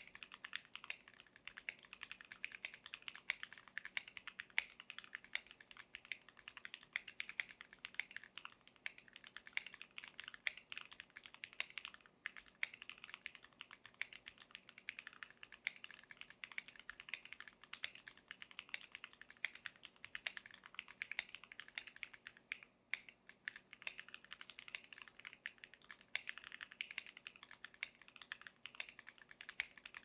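Continuous typing on a PressPlay Voyager68 gasket-mount mechanical keyboard with Gateron Yellow linear switches: a dense, steady stream of key strokes, with brief pauses about twelve seconds in and again around twenty-three seconds.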